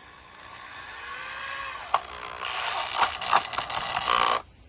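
A kindling-splitting device working a piece of firewood. A mechanical grinding builds, then the wood cracks and splinters with several sharp snaps. It stops abruptly near the end.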